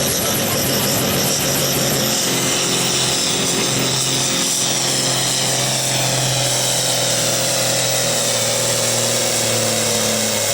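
Competition pulling tractor's engine running at full throttle under load during a pull: a loud, steady, high-pitched howl whose pitch sags slowly after about two seconds.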